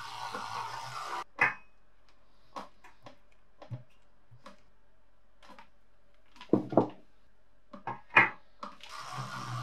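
An electric toothbrush buzzes and cuts off about a second in. Then come scattered clinks and knocks as rusty steel vise parts are handled and set down in a stainless steel tray, loudest in a quick pair past the middle and a sharp knock near the end. The toothbrush starts buzzing again just before the end.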